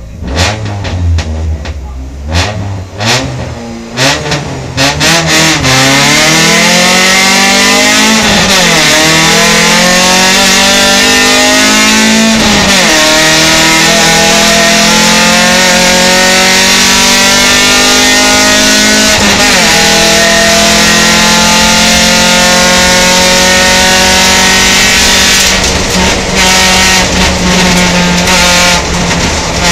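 Opel Kadett GSi's four-cylinder race engine heard from inside the cabin: uneven revving at the start, then a hard launch and flat-out acceleration up the hill. The engine note climbs and drops sharply at three upshifts, then holds high and steady before wavering near the end as the throttle eases.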